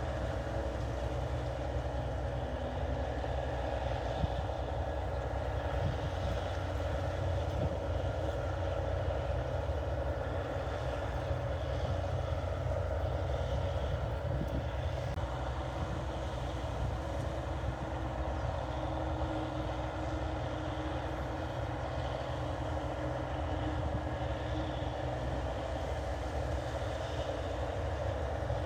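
New Holland 8080 combine harvester running steadily while harvesting rice: a constant, unbroken engine and machinery noise with no change in pace.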